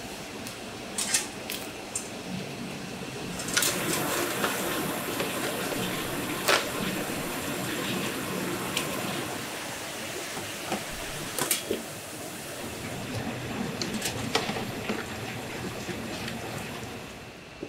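Stainless steel tofu-mould panels knocking and clanking a few times as the mould is opened and the curd block handled, over a steady rushing background noise.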